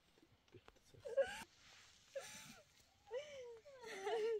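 A person crying: several short, high-pitched wavering sobs and wails, broken by breathy gasps.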